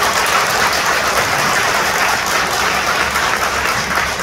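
Audience applauding steadily, a dense clapping with no voices over it.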